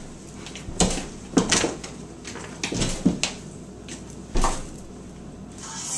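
A few scattered light knocks and bumps at uneven intervals, the loudest about a second and a half in and again about four and a half seconds in, over a low background.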